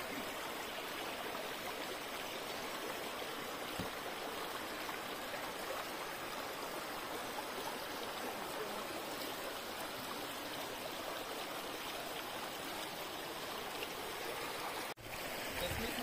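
Steady rush of a shallow stream running over rocks, cutting out for an instant near the end.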